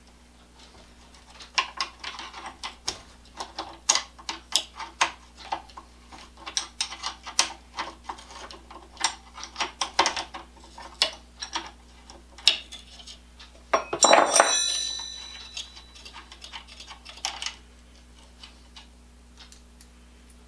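Irregular metal clicking and clinking of wrenches on the hedge shears' center pivot bolt and nut as the bolt is loosened and taken apart. About two-thirds of the way in comes one loud clang that rings briefly, metal striking metal.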